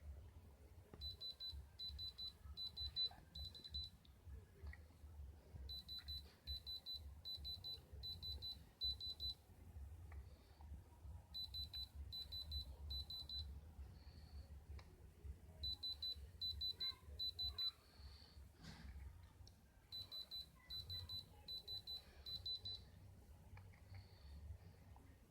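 An electronic alarm beeping: a high tone in groups of about five quick beeps, each group lasting about three seconds and coming back every four to five seconds, five times. A faint low hum runs underneath.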